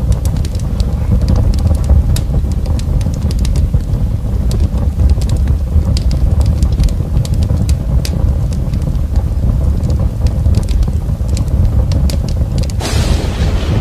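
Fire sound effect: a deep steady roar with many sharp crackles scattered through it. Near the end a louder hiss joins in.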